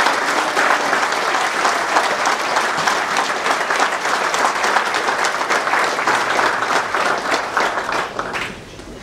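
A roomful of people applauding, the clapping dying away near the end.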